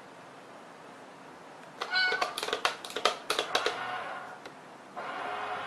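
A domestic cat meowing, starting about two seconds in, with a run of sharp clicks or knocks around the call; another drawn-out cat sound begins near the end.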